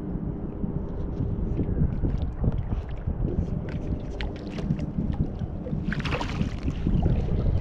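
A hooked fish splashing as it is scooped into a landing net beside the boat, a short rush of water about six seconds in. Under it, a steady low wind rumble on the microphone and small scattered clicks.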